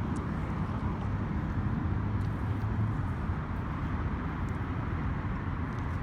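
Steady low rumble of city traffic and urban background noise, with a few faint clicks.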